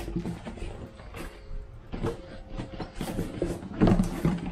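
A cardboard shipping box being opened and unpacked: flaps rustling and an inner boxed product sliding and scraping against the cardboard, with several irregular knocks, the loudest about four seconds in.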